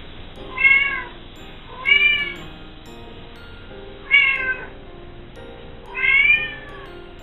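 A domestic cat meowing four times, each call rising then falling in pitch and lasting about half a second, spaced roughly two seconds apart.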